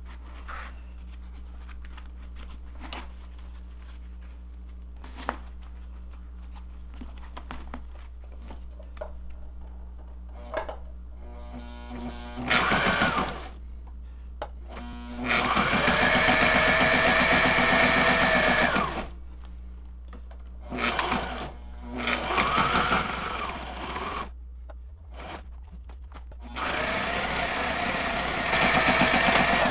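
Sewing machine stitching straps in bursts of fast, even needle strokes: several short runs and one longer run of about three seconds. The motor speeds up and slows down at each start and stop. Light clicks come before the stitching starts, about twelve seconds in.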